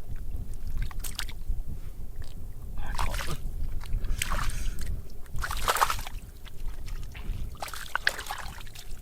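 Water sloshing and splashing in irregular bursts, about five in all, over a steady low rumble.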